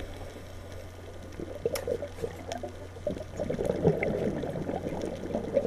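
Muffled underwater gurgling and sloshing picked up through a GoPro's waterproof housing, uneven in level, over a steady low hum.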